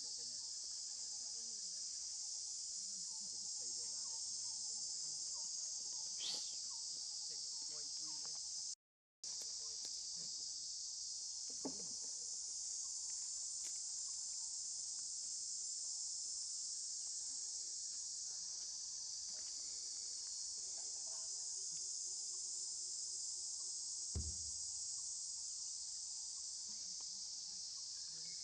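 Steady high-pitched chorus of insects, unbroken except where the audio cuts out for a moment about a third of the way through. A few faint knocks sound over it, the clearest near the end.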